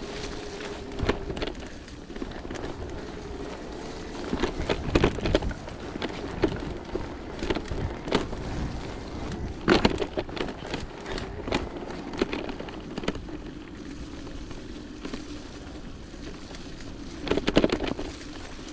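Electric mountain bike ridden down a muddy trail: repeated knocks and rattles as the bike goes over bumps, loudest around five, ten and seventeen seconds in, over a steady whirring tone.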